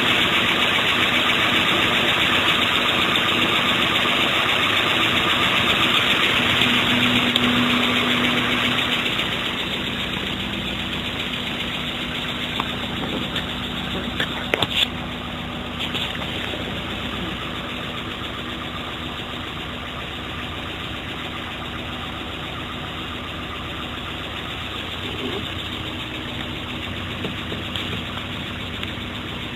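1994 Mazda MX-5 Miata's 1.8-litre BP-ZE four-cylinder idling steadily, heard from inside the cabin. It drops a little in loudness about a third of the way in, and a few sharp clicks come near the middle.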